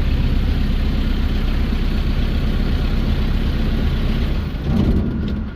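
Engine of a Metsäkirppu small forest machine running steadily, then shutting off at the very end as it is switched off.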